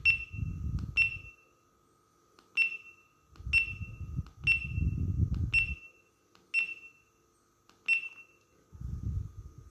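Action camera beeping at its button presses: eight short, sharp high beeps, irregularly spaced about a second apart, as the settings are cycled and recording is started. Fingers rubbing and pressing on the camera body add a low rumbling in between.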